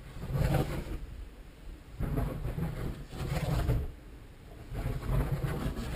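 Kinetic K2M dynamic-soaring model glider passing again and again on its loops: a rush of air that swells and fades about every two seconds, three passes in all.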